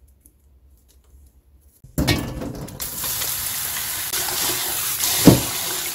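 Tap water pouring steadily onto dureup shoots in a stainless steel colander in a sink, starting suddenly about two seconds in after a near-silent start. One sharp knock sounds near the end.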